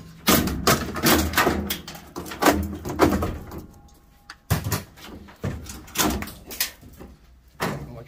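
Irregular knocks, clicks and rattles of a wiring harness and its plastic clips being pulled free and knocking against a front-load washing machine's sheet-metal cabinet, busiest in the first few seconds and more spaced out later.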